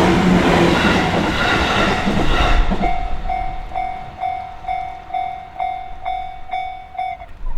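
A train rumbling past over a level crossing, its wheel-on-rail noise dying away about two and a half seconds in. Through it the crossing's warning bell keeps ringing in even strokes, about two a second, and stops just before the end.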